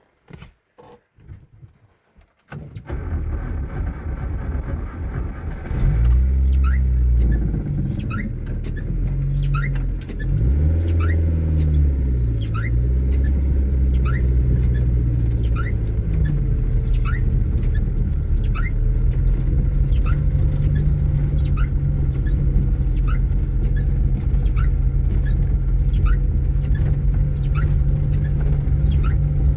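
A few knocks, then a car engine pulling away, revving up and dropping back several times as it shifts through the gears, then running steadily at cruising speed. Short high squeaks come about once a second.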